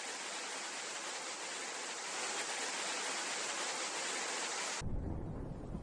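Steady, even hiss of heavy rain and rushing floodwater in a flash flood, growing a little louder partway through. Near the end it cuts suddenly to a deeper, heavier rush of noise.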